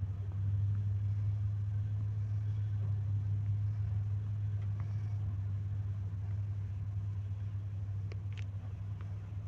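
A heavy diesel engine running steadily at a low, even idle with a deep drone; a couple of faint ticks near the end.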